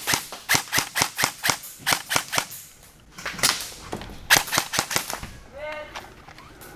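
Airsoft guns firing: a rapid, irregular string of sharp shots, pausing briefly about three seconds in before another run. A short shout near the end.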